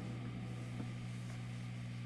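Steady low electrical hum with a light hiss: background room tone, with no music or speech.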